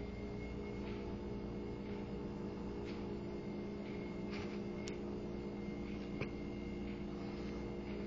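Steady low electrical hum made of several even tones, with a few faint short ticks over it.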